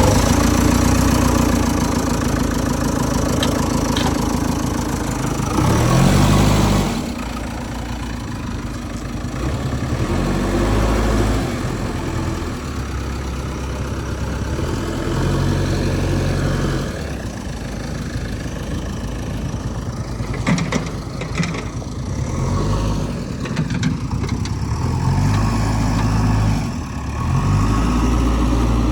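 A heavy diesel engine runs without a break, its revs rising and falling several times, with short louder spells.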